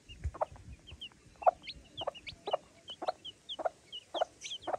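Domestic chicks peeping in rapid short high chirps while a hen gives low clucks about twice a second.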